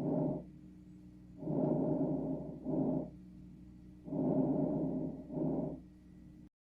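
Recorded lung sounds heard through a stethoscope: two full breaths about 2.7 seconds apart, each a long rushing noise, a brief break, then a shorter one, with a quiet pause between breaths. The sound drops out for a moment near the end.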